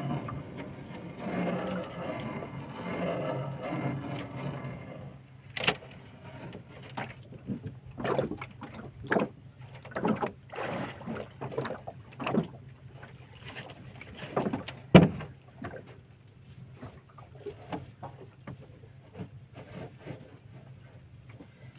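A crab-trap line being hauled by hand over a small boat's bow: for the first few seconds a dense, steady sound of water and hauling, then irregular sharp knocks and splashes as line and trap strike the hull and water. The loudest knock comes about two-thirds of the way through, and a faint low hum runs underneath.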